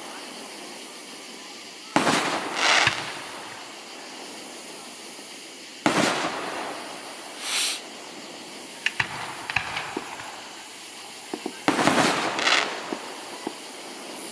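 Aerial fireworks shells bursting: three sharp booms a few seconds apart, each trailed by a crackling sizzle, with a hissing burst after the second and scattered small pops in between.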